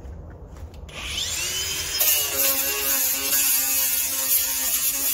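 Angle grinder fitted with a coarse buffing pad: the motor starts about a second in and its whine rises as it spins up, then the pad scrubs loudly against the enamel-painted steel, taking the old paint and stickers back before repainting. It lets go near the end.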